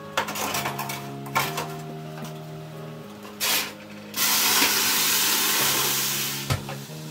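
Boiling water poured onto hot lava stones in a baking tray in a preheated oven, hissing loudly into steam for about two seconds and stopping abruptly with a knock. Before it come a few clatters of a baking tray sliding into the oven, over light background music.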